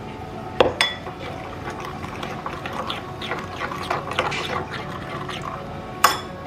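Thick spinach puree poured from a blender jar into a ceramic bowl of semolina, then a metal spoon stirring the wet batter, with small scrapes and clicks. Sharp clinks of metal on the bowl come about half a second in and again near the end.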